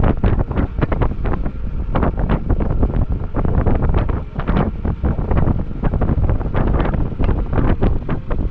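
Wind buffeting the microphone: a loud, gusty rumble broken by many quick blasts.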